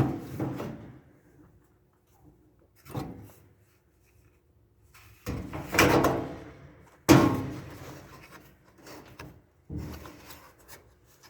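Parts of a torn-down dryer being handled: about five separate clunks and scrapes, each dying away quickly, with the sharpest and loudest knock about seven seconds in.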